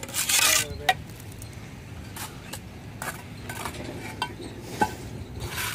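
A steel mason's trowel scraping mortar and clinking against concrete blocks. There is a scraping stroke at the start, then scattered sharp, ringing clinks.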